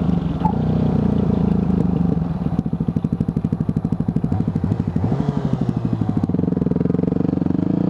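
Yamaha WR250F's single-cylinder four-stroke engine with an FMF full exhaust, running while being ridden. A couple of seconds in, the revs drop so the individual exhaust pulses can be heard, then they climb again near the end.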